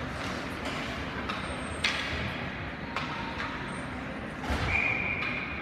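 Ice hockey game ambience in an arena: a steady rink and crowd hum with the knocks of sticks and puck, a sharp one about two seconds in. A referee's whistle blows once, a steady high note held for about a second near the end.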